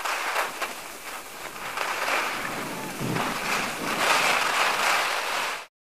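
Skis hissing and scraping over packed snow, swelling and easing with the turns, until the sound cuts off suddenly near the end.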